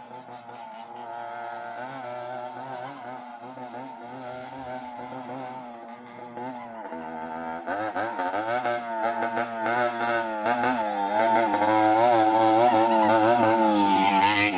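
Motorcycle engine approaching at varying revs, its pitch rising and falling as the throttle is worked, growing steadily louder until it is close near the end.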